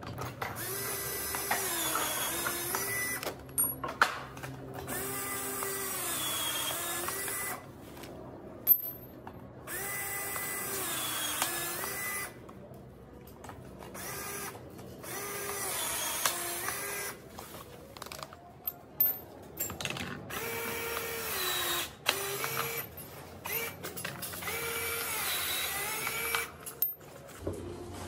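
Cordless 14.4 V power tool clamped on a plastic pipe, its motor running in several bursts of a few seconds with short pauses between, the pitch sagging and recovering within each burst as it meets load.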